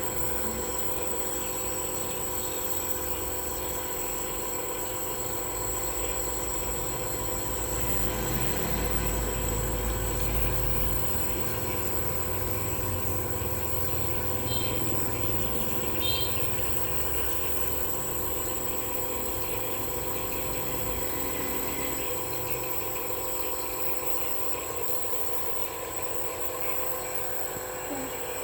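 Nebulizer running: a steady machine hum with several constant tones, a deeper rumble swelling through the middle, and two short high beeps about halfway through.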